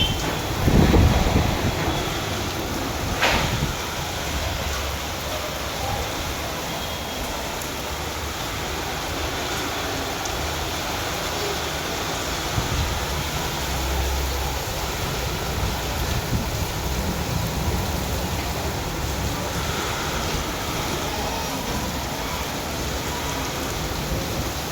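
Steady rain falling, an even hiss, with a brief low rumble about a second in.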